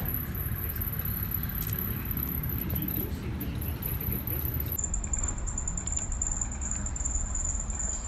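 Steady low background rumble with a faint high-pitched whine that drops in pitch about five seconds in, and a few soft clicks.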